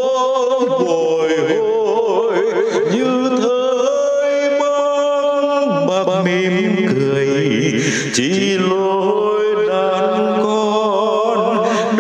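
A Vietnamese song: a solo singer holds long, wavering notes over instrumental accompaniment.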